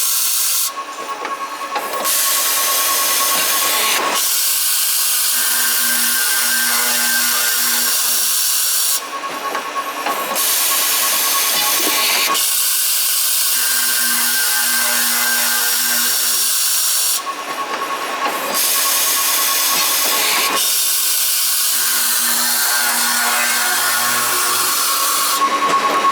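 CNC pipe-cutting machine cutting 21 mm pipe in an automatic cycle: a steady hissing, grinding noise over a motor hum, broken by a short lull about every eight seconds as each cut ends and the next begins.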